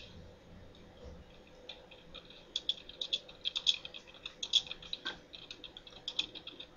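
Faint typing on a computer keyboard: an irregular run of quick key clicks that starts a second or two in, over a faint steady hum.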